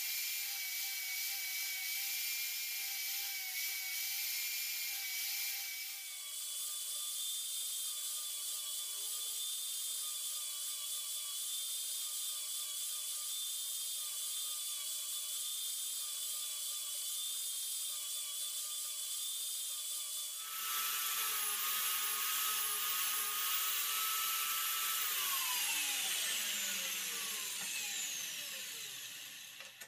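Angle grinder running steadily with a dish-shaped grinding wheel while the teeth of a circular saw blade are ground on it, a hiss over a high motor whine. Near the end the grinder is switched off and winds down, its pitch falling over several seconds.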